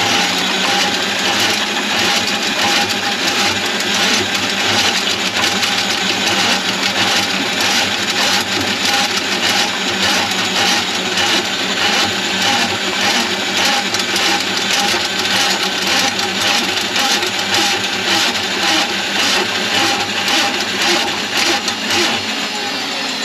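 Electric drain-cleaning machine running steadily, its motor humming and the spinning cable rattling as it works through a kitchen drain line clogged with grease.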